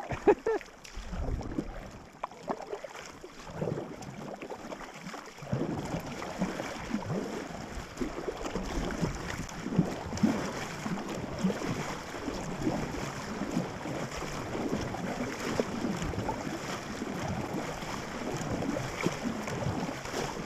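Paddle strokes and water splashing and lapping against an inflatable packraft being paddled. The splashing is sparser for the first five seconds or so, then an even, irregular run of splashes.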